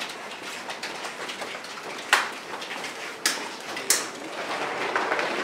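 Steady echoing din in a stadium players' tunnel as footballers walk through it, broken by three sharp cracks about two, three and four seconds in.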